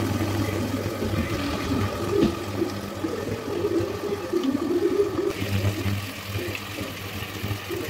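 Pot of peas cooking with onion, oil and stock, bubbling with an irregular watery gurgle over a steady low hum.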